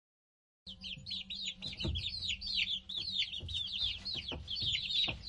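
Baby chicks peeping: a fast run of short, high, downward-falling cheeps, about five a second, starting just under a second in, with a few soft knocks among them.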